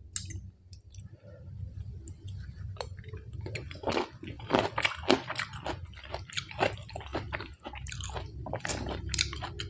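Close-miked chewing of a mouthful of rice noodles with crisp raw Thai eggplant: a quick, irregular run of wet crunching and squishing clicks over a low steady hum.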